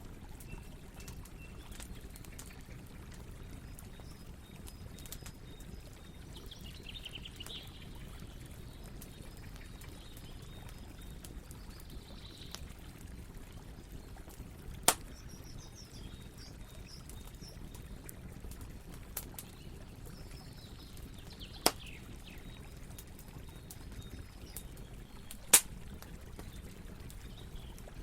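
Campfire burning with a steady low rumble and scattered crackles, and three sharp pops, the last the loudest. High chirping calls come and go in the background.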